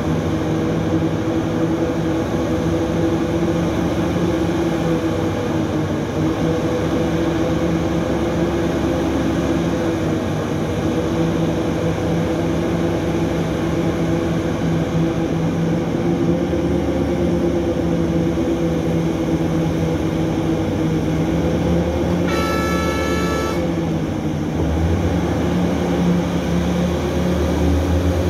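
Hitachi 3600 mining excavator's engine running steadily with a constant hum as it digs and loads. Late on, one horn blast lasting just over a second, followed by a deeper rumble swelling underneath.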